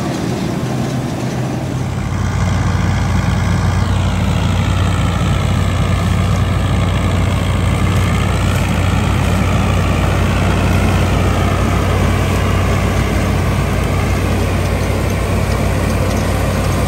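Agri Master 804 tractor's diesel engine running steadily at working speed, driving a wheat thresher. Under the low engine drone, a higher whine from the thresher wavers slowly up and down in pitch.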